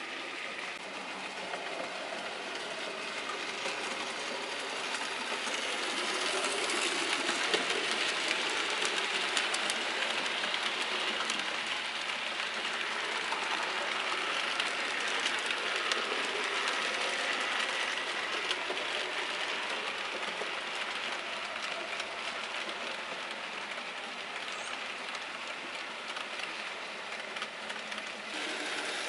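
Bachmann OO gauge USA S100 0-6-0T model locomotive and its coaches running on a model railway track: a steady motor whirr and wheel rumble with faint clicking over the rail joints. It grows louder as the train comes close past the microphone a few seconds in, then gradually fades.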